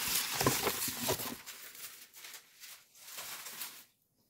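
Wrapping paper rustling and crinkling as it is handled, loudest in the first second or so and then fading to faint rustles. Near the end the sound cuts out to dead silence.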